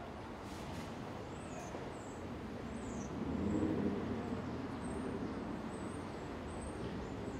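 Town street ambience: a steady traffic bed with a vehicle passing, swelling about three to four seconds in, and small birds chirping high over it.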